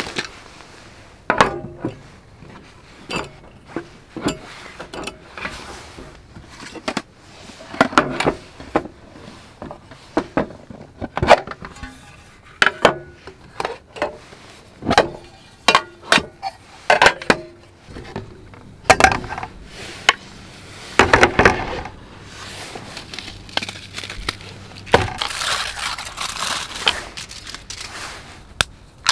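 Handling of camp cookware on a slatted wooden table: a string of separate knocks and metal clinks as an aluminium mess tin and other gear are set down and moved. A few seconds of rustling follow near the end.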